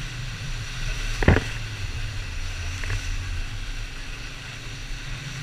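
Inflatable banana boat skimming fast over choppy sea under tow: a steady low rush of wind and water on the camera's microphone, with a sharp knock a little over a second in and a fainter one about a second and a half later.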